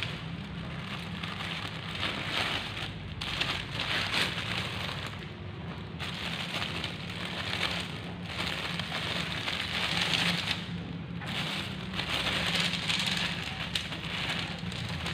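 Nylon tent fabric and a thin plastic bag wrapped around a bundle of tent poles rustling and crinkling as they are handled, coming in swells a second or two long, over a steady low hum.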